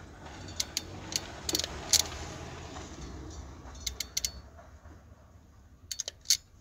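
Crimping pliers clicking as they crimp a terminal pin onto a wire: sharp clicks in a few small groups.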